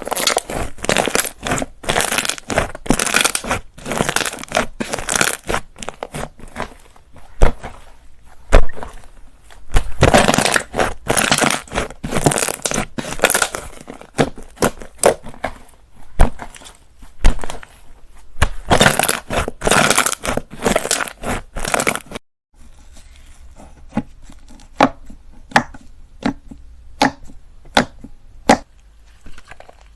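Slime being squeezed and pressed by hand, with dense crackling and crunching clicks. About 22 seconds in it cuts to sparser, sharp single pops.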